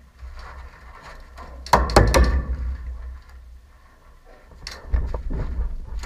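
Two quick clusters of sharp clacks and knocks, the louder about two seconds in and another near five seconds, over a steady low wind rumble on the microphone.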